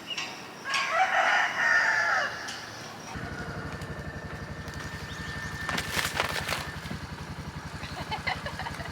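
A rooster crows about a second in. About three seconds in, an engine comes in running at a steady idle with an even low throb.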